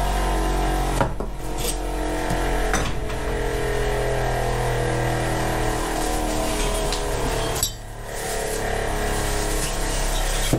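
A steady hum with several shifting tones, over which metal parts clink and knock lightly a few times as they are handled on a workbench.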